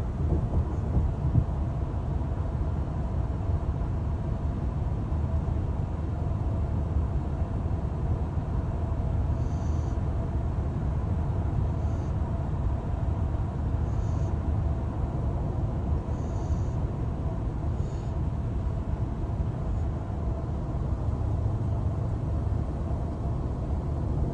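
A Rottweiler snoring in deep sleep, tired out, under a steady low rumble, with faint short high hisses about every two seconds in the middle stretch.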